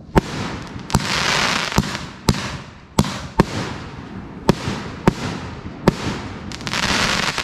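Pyro King Major Riot 500-gram cake firing its 1.5-inch ball shells: a string of about ten sharp bangs, roughly one every half second to second. Crackle breaks sizzle about a second in and again near the end.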